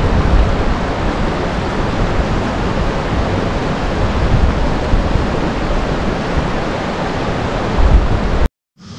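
Strong wind rushing over the microphone: a loud, steady roar with uneven low buffeting. It cuts off abruptly near the end.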